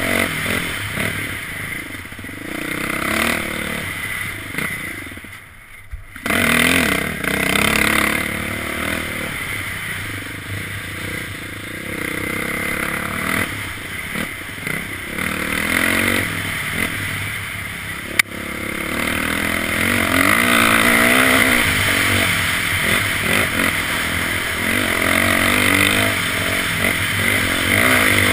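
Dirt bike engine revving up and down as the bike rides a rough trail, easing off briefly about five seconds in, then pulling harder toward the end. A single sharp knock partway through.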